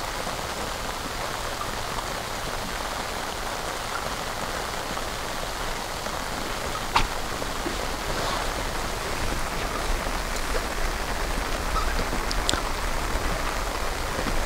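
Steady rain falling on the lake, an even hiss of drops, with a sharp tick about halfway through and a couple of faint ticks near the end.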